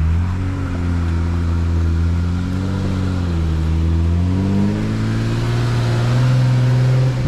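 A Jeep's engine pulling at low speed, its pitch rising and falling several times as the throttle is worked, then held steadier and a little higher near the end.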